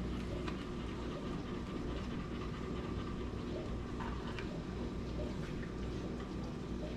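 Faint, scattered clicks and scrapes of spoons against a glass baking dish and a small bowl as peach cobbler is dished up and eaten, over a steady low hum.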